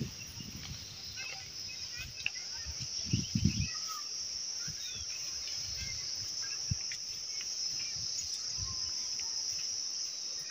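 Steady high-pitched insect chirring, with scattered short bird chirps over it and a few low thumps about three seconds in.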